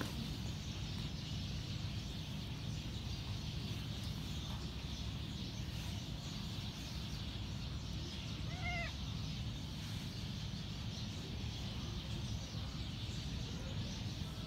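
A cat gives one short, rising-and-falling mew about eight and a half seconds in, over a steady low background rumble.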